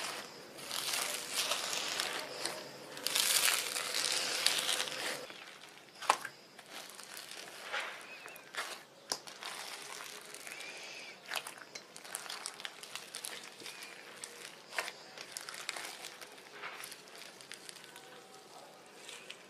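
Homemade slime being squeezed and worked by hand, crinkling and crackling. It is denser and louder for the first five seconds or so, then goes on more quietly with scattered sharp pops.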